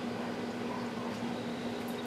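A steady mechanical hum and hiss with a low, level droning tone, unchanging throughout; a couple of faint clicks near the end.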